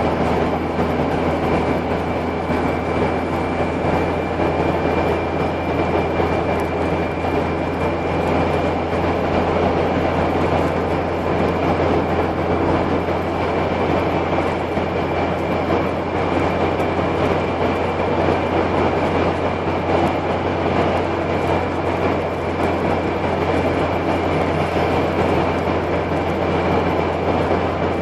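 Car cabin noise while cruising at steady speed: a constant low engine drone under an even roar of tyres and road, with no revving.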